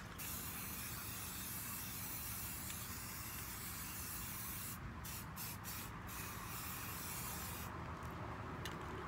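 Aerosol can of Rust-Oleum American Accents metallic gold spray paint spraying: a long steady hiss for about five seconds, then several short bursts, another long spray, and a few short bursts near the end.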